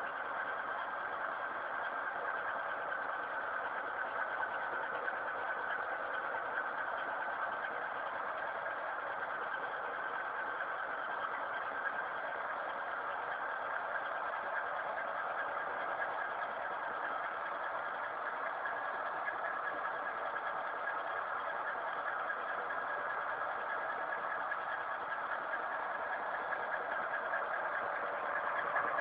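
Electric pipe-cutting saw running steadily, a continuous motor whine that holds the same pitch throughout.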